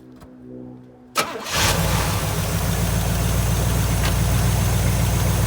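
A 1982 Trans Am's 5.0-litre V8 cranks briefly about a second in, fires and settles into a steady idle. It is running with engine flush added, as a step before an oil change.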